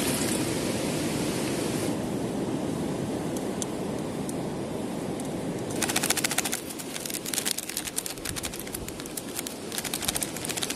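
Plastic soup-powder sachet crinkling as it is shaken out over a steel pot, in runs of rapid crackling about six seconds in and again near the end, over a steady low rushing noise.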